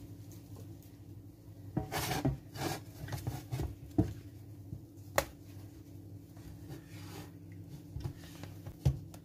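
A spatula scrapes thick cooked dough across a nonstick pan, and the utensil and a plastic plate knock sharply against the pan a few times. A low steady hum runs underneath.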